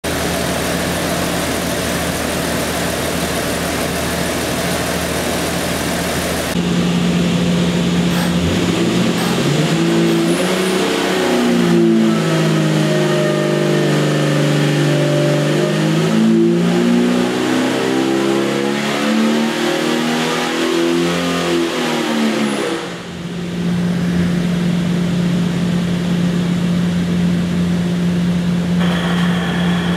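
Jeep 4.6-litre stroker inline-six running on an engine dynamometer: a full-throttle pull in which the engine note dips and then climbs steadily in pitch for several seconds. The note drops off abruptly about 23 seconds in as the throttle is closed, then the engine runs on steadily.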